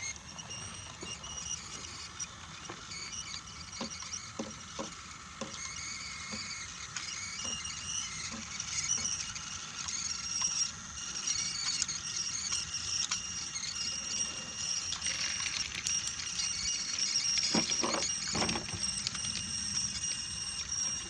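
Battery-powered Brio toy train running along wooden track: a steady high-pitched motor whine with light clicking and a few knocks as the wheels go over track joints.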